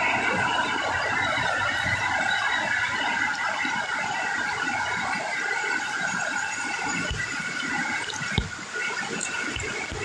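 Floodwater rushing down a narrow walled path, a steady, fairly loud noise of churning water. A brief thump sounds about eight seconds in.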